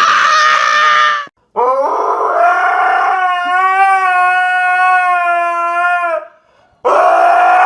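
A dog howling in long, loud calls: one ends about a second in, the next is held at a steady pitch for about four and a half seconds, and a third begins near the end.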